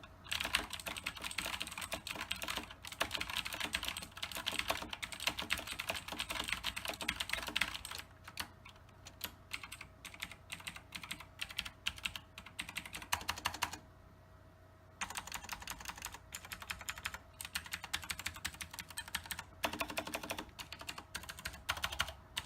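Razer BlackWidow X Chroma mechanical keyboard being typed on, its Razer Green clicky switches clicking. A fast run of keystrokes lasts about eight seconds, then come slower separate presses, a short pause near the middle, and more typing.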